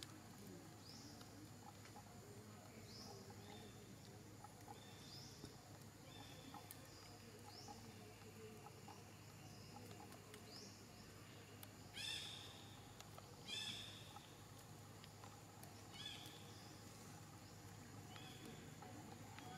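Faint, short calls that rise in pitch repeat about every two seconds over a quiet outdoor background. Three louder calls come a little past the middle.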